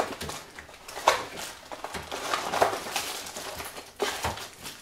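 Close handling noise of plastic and cable: irregular rustling and scraping with a few sharp clicks, as the flat ribbon cable from an LG OLED65W7V wallpaper TV screen is worked into the connector on its soundbar unit.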